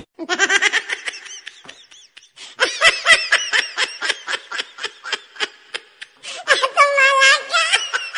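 People laughing: quick, high-pitched ha-ha laughter repeated several times a second, loudest about three seconds in and again near the end.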